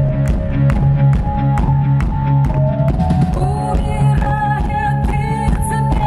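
A live rock band plays with a drum kit keeping a steady beat over a strong bass line and held notes. About halfway through, a woman's singing voice comes in over the band.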